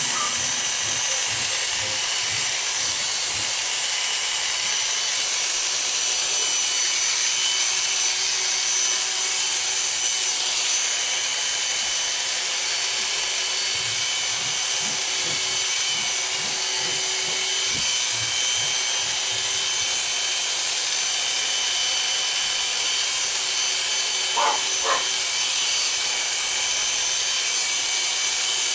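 Oster Classic 76 electric hair clippers running steadily with a high hum while cutting hair over a comb, with two brief taps near the end.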